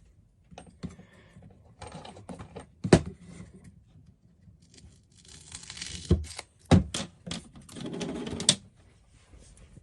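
Hands at work on double-sided tape and fittings: irregular clicks and knocks, with scratchy rustling between. A sharp knock comes about three seconds in and two more come around six to seven seconds.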